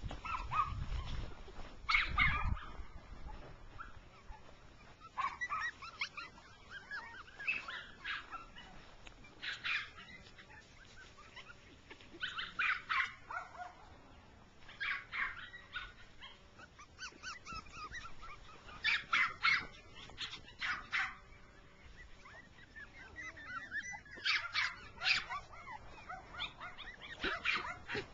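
Jack Russell Terrier puppies yapping in short, high-pitched bursts again and again, with a low rumble in the first couple of seconds.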